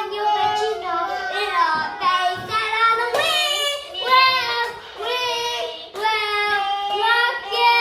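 A young child singing, a string of short high-pitched phrases whose pitch glides up and down.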